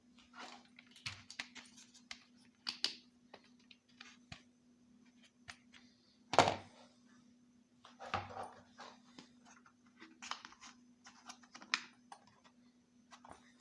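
Small plastic miniature toy pieces being handled and set down on a hard surface: scattered light clicks, taps and rustles, with one louder knock about six seconds in, over a faint steady hum.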